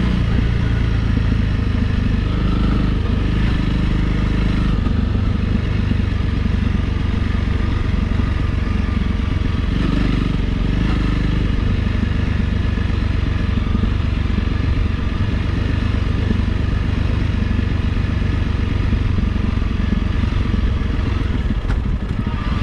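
A Honda CRF Rally's single-cylinder engine running steadily as the motorcycle is ridden along, with a constant low rumble.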